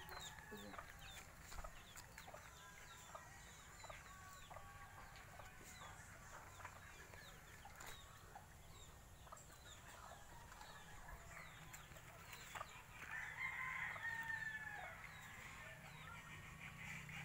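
Faint chickens: short high chirps throughout, and one rooster crow about thirteen seconds in, lasting about two seconds.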